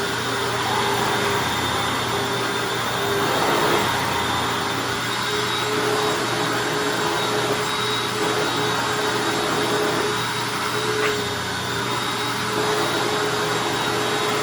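Hoover Anniversary upright vacuum cleaner running steadily with a constant high motor whine while vacuuming up wood chips.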